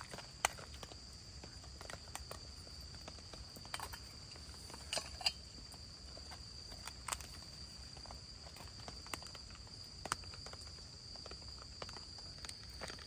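A steady, high-pitched insect trill with scattered sharp ticks and pops over it; the loudest pops come about half a second in and around five seconds in.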